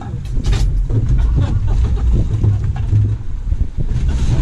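Wind buffeting the microphone on an open boat: a loud, uneven low rumble.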